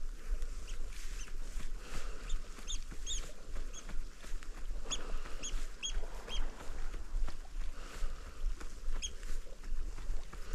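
Short, high bird calls, single and in quick runs of two or three, over a steady low rumble of wind on the microphone.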